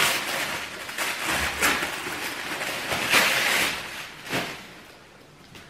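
Gift wrapping rustling and crackling as a parcel is unwrapped by hand. It is loudest about three seconds in and dies down near the end.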